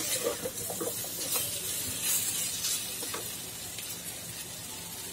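Pumpkin, potato and pointed gourd frying with grated coconut in a kadai, a faint steady sizzle, with a few light scrapes and clinks of a spatula stirring during the first few seconds.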